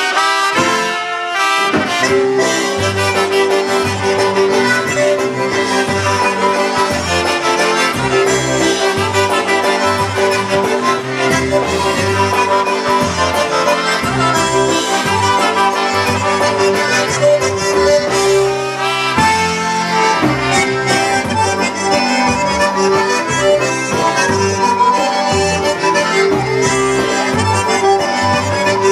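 Live band playing an oberek, a fast Polish dance tune in triple time. Two trumpets, a concertina, an electric bass guitar and a drum kit play together.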